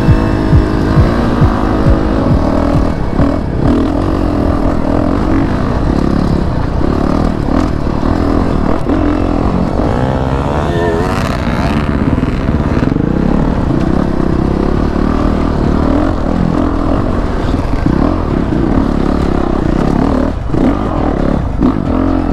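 2019 Honda CRF450RX dirt bike's single-cylinder four-stroke engine running under the rider, its pitch rising and falling with the throttle over rough dirt. About halfway through, another dirt bike passes close by with a quick rising rev.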